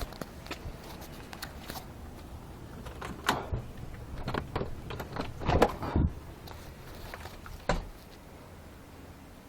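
Irregular knocks and clatter, several close together, the loudest about three, five and a half to six, and nearly eight seconds in.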